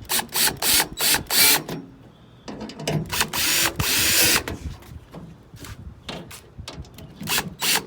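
Cordless power drill driving the tailgate panel's fasteners back in: several short trigger bursts in the first second and a half, a longer run about three seconds in, then scattered clicks and taps.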